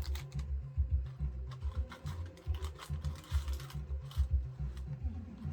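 Unboxing handling noise: irregular small clicks and taps of plastic pieces and packaging, with low bumps against the surface and a brief rustle about three seconds in.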